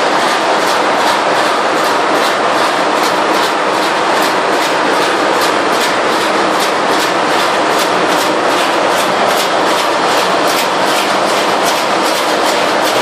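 MAN B&W 12K90MC main engine, a twelve-cylinder two-stroke low-speed marine diesel, running: a loud, steady engine-room din with a regular rapid ticking on top.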